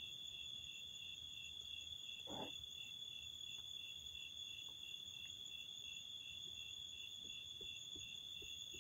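Crickets trilling in the background: a faint, high, steady trill with a light pulse a few times a second. There is one brief soft sound about two and a half seconds in.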